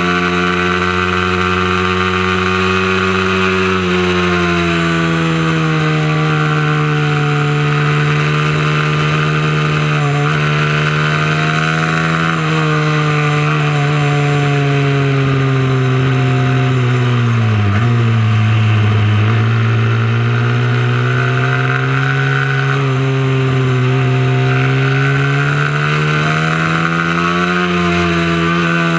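Small mini-moto racing motorcycle engine running hard and continuously, its pitch falling and rising with the throttle through a lap. It drops to its lowest about 18 seconds in, as if braking for a corner, then climbs back up.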